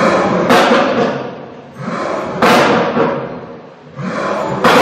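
Pagani Huayra BC's twin-turbo V12 blipped hard three times, about two seconds apart. Each burst goes off sharply and fades away in a hiss.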